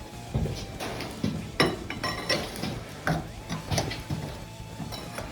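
A steel pry bar knocking and clinking against the cylinder head of a John Deere 2630 tractor engine, with irregular metallic knocks, some ringing briefly, as the head is pried up to break its seal.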